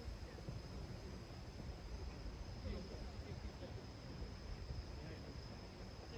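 Storm wind buffeting the microphone in a low, uneven rumble, over a steady high-pitched trill.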